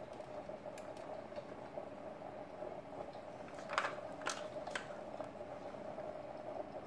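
A few light clicks and taps from handling a 1/24 diecast model of a Ford Crown Victoria police car as its opening hood is lifted. The loudest is a short cluster a little past halfway, followed by two more single clicks, over a steady faint hum.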